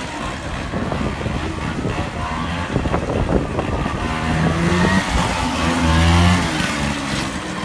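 Race car engine running hard under load, its pitch rising and falling as the driver accelerates and lifts through the run.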